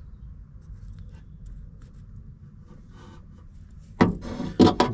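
Faint handling ticks, then about four seconds in a loud clack and creak as the Renault Fuego Turbo's door is swung on its door check. The clack comes from play on the door check's pin.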